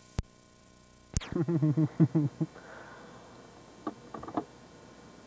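A sharp click as the camcorder recording breaks and restarts, a second click about a second in, then about a second of low, wordless vocal sound in short pitched pulses, like humming or a chuckle. A few faint clicks follow near the end.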